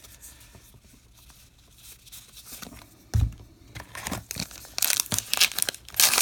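Faint handling of trading cards, a soft thump about three seconds in, then a baseball card pack's wrapper being torn open and crinkled, loudest near the end.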